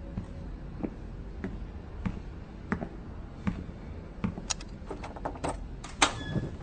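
Footsteps on a hard floor at about one and a half steps a second, then a cluster of metallic clicks from a locker door's latch. Near the end the locker door opens with a sharp clack, the loudest sound here.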